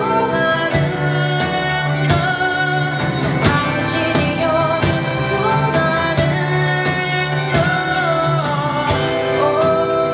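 Live band music: a singer's held, gliding melody over a band of instruments, with regular drum and cymbal hits.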